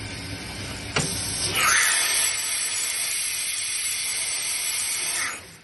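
Morbidelli Author 600 KXL CNC machining center working: a click about a second in, then a loud, steady hiss from about a second and a half in that cuts off sharply near the end.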